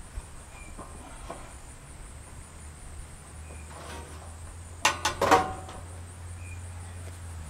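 Corrugated metal roofing sheet being handled, giving a quick cluster of sharp metallic clatters and rattles about five seconds in, over a faint steady low hum.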